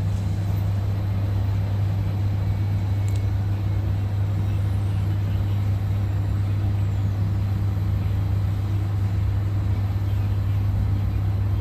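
Steady low mechanical hum with an even rushing noise over it, unchanging throughout.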